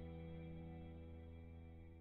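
Closing background music: a single held low chord, slowly fading out.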